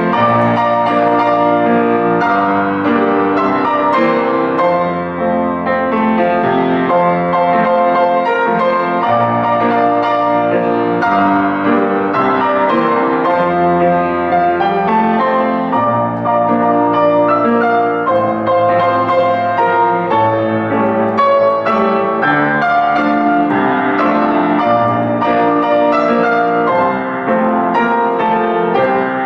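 Piano playing a slow, legato piece: sustained chords over long-held bass notes, at an even, moderate loudness.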